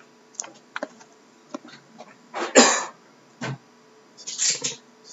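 Handling noise: a few light clicks and knocks, a short hissy burst about two and a half seconds in, and a soft thud about a second later.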